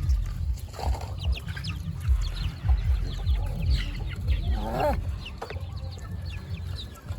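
Chickens clucking, with many short calls throughout and one longer call about halfway through, over a steady low rumble.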